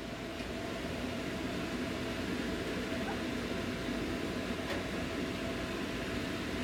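Steady whir of a kitchen range hood exhaust fan, with a few faint light clicks.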